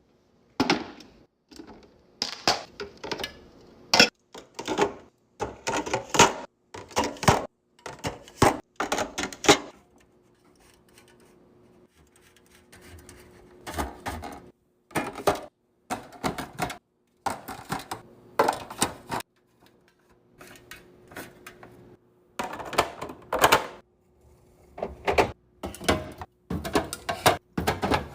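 Fridge restocking: a quick series of clicks, clinks and knocks as containers, bottles and packages are set down and arranged on shelves, with brief pauses twice.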